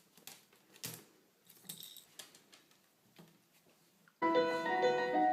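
A few faint, scattered clicks and taps, then music with held instrument notes starting suddenly about four seconds in.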